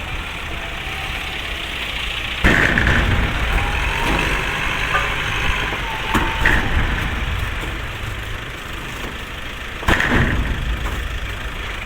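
Vehicle engine idling steadily, with two sudden loud knocks, one about two and a half seconds in and one near the end.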